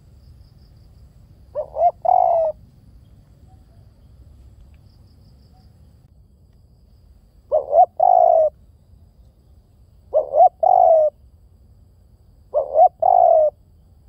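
Spotted dove cooing: four calls several seconds apart, each two short notes followed by a longer, slightly falling note.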